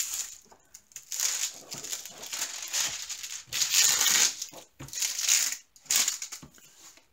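Clear plastic protective film on a diamond painting canvas crinkling as hands smooth and rub across it, in a series of separate swishes.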